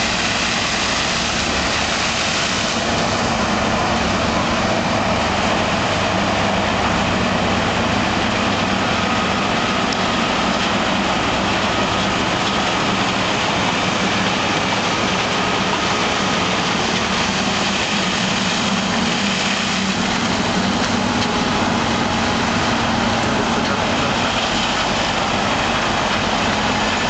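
Combine harvester running steadily while harvesting corn: an even, unbroken machine noise of the engine and threshing gear.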